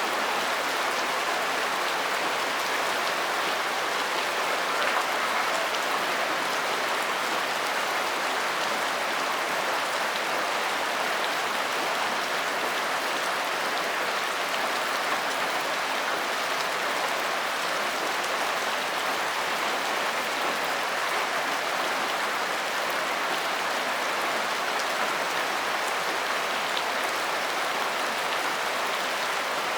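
Steady rainfall: an even hiss of many drops that holds constant, with no thunder.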